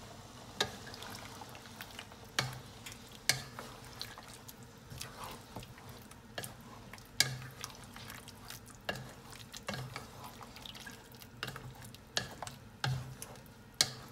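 Wooden spatula stirring a thick chicken curry in a metal pot, knocking sharply against the pot at irregular intervals of about a second, with wet stirring sounds of the sauce in between.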